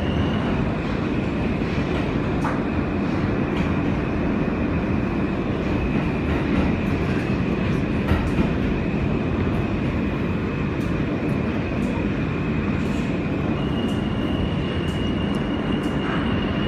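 R160B subway car with Alstom propulsion running at speed: a steady rumble of wheels and running gear with scattered sharp clicks. A steady high whine runs over it and jumps slightly higher in pitch about three-quarters of the way through.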